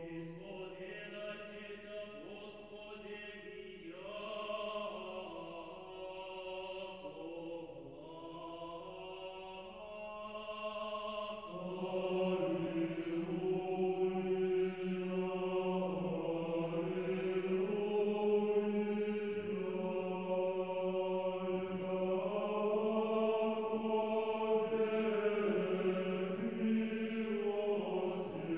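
Choral chant: slow, held sung lines over a steady low drone note, growing louder about twelve seconds in.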